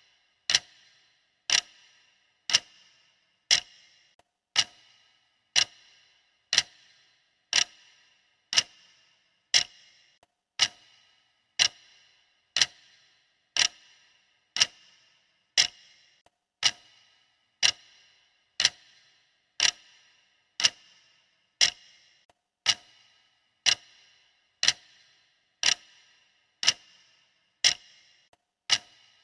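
Clock-style ticking of a workout countdown timer: one sharp tick each second, each with a short ring, steady and even.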